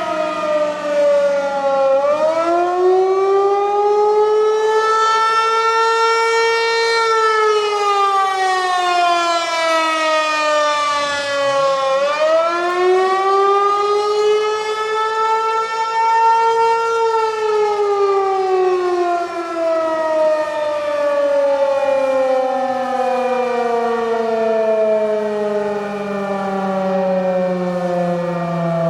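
Federal Signal 508 outdoor warning siren sounding its wail for a tornado warning: one loud tone that climbs for about five seconds, then falls away, climbs again about twelve seconds in, and ends on a long slow fall.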